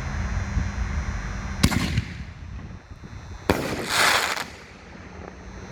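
Consumer 5-inch canister firework shell (Raging Bull by Mad Ox, crackling effect) fired from a mortar tube: a sharp launch bang about a second and a half in, then, about two seconds later, the shell breaks overhead in a dense second-long spray of noise.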